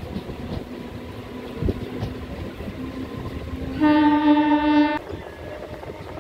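Passenger train running along the track, its rail noise heard from an open coach doorway, with one loud locomotive horn blast of about a second a little past the middle.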